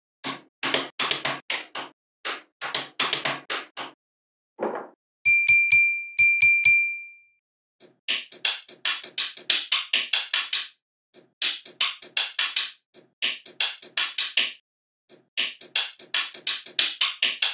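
Small neodymium magnetic balls clicking and snapping together in quick clusters as they are pressed into place. About five seconds in, a bright chime rings twice, the second ring dying away over about a second.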